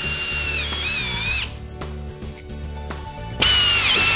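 Power drill with a hex driver bit driving a screw and washer through the mesh tarp into the tarp rod: a steady high whine that sags and stops about a second and a half in. A second, louder run starts near the end and drops in pitch as the screw pulls down.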